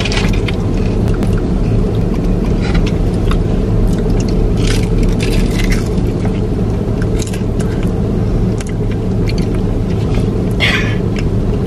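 Steady low rumble inside a car, with a few short crisp crunches as two people bite into and chew fried pies.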